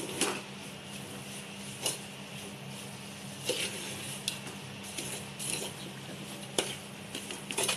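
Metal spoon stirring a thick, crumbly jaggery-and-semolina mixture in a large metal pot, with irregular scrapes and light knocks against the pot's side and bottom.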